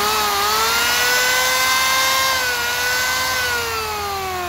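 Maktec MT583 electric hand planer's motor running at full speed with a steady whine, then switched off and winding down, its pitch falling from about three seconds in.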